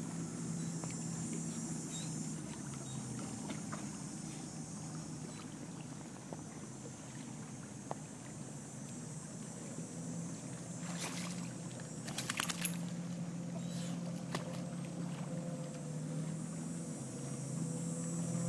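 Steady low drone of a distant boat engine across the water, swelling and fading in level, with a cluster of short sharp clicks past the middle.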